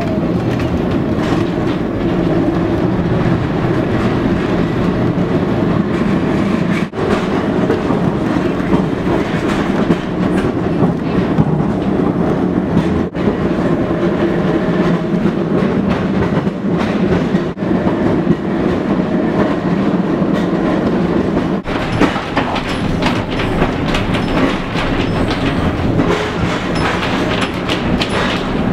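Old Brisbane drop-centre electric tram running along the track, heard from inside its open-sided passenger section: a steady rumble of wheels on rail, with clicks and rattles that come more often near the end.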